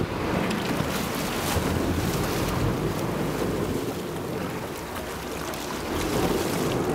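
Wind buffeting the microphone over steady sea water splashing and rushing close alongside a boat.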